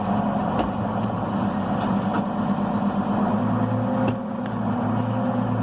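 Allis-Chalmers 8070 tractor's diesel engine running steadily with a low hum, and a couple of light clicks, one about half a second in and one about four seconds in.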